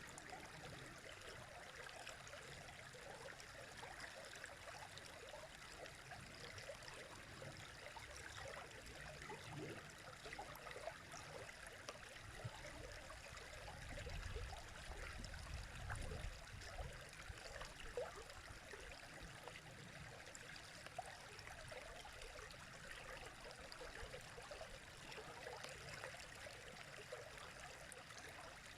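River water flowing steadily, a faint continuous rush with many small splashes, and a low rumble swelling briefly about halfway through.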